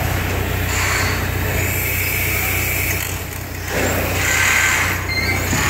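1917 Snow 600-horsepower gas compressing engine running: a steady low hum with a hiss that swells and fades every couple of seconds.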